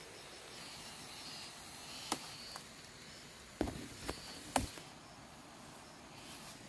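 Young cassava stems snapping as the shoots are broken off by hand: about five short, sharp snaps spread over some three seconds, over a faint steady hiss.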